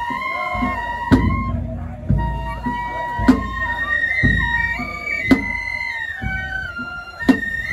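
Japanese festival hayashi: a bamboo flute plays a melody of held, stepping notes, with a sharp drum strike about every two seconds.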